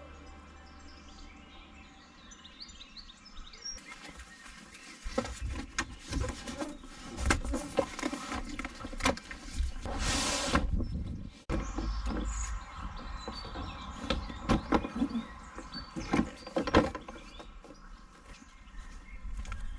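Birds chirping over knocks and clatter of camping gear being lifted out of a car's boot and set out, with a brief rushing noise about ten seconds in.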